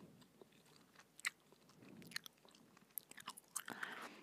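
Gum chewing close to a microphone: soft wet smacks and sharp clicks of the mouth, with a couple of louder clicks about a second in and near three seconds.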